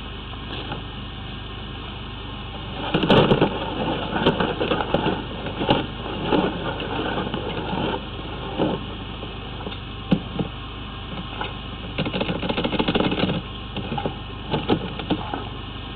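High-pressure drain jetter at work in a sewer pipe: irregular rushes of noise and sharp knocks from the water jet and its hose, over a steady low hum. The rushes start about three seconds in, and the first one is the loudest.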